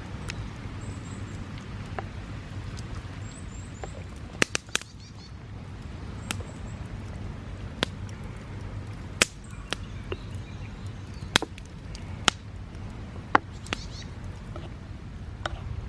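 Wood campfire crackling: a dozen or so sharp pops at irregular intervals over a low steady rumble, with faint bird chirps now and then.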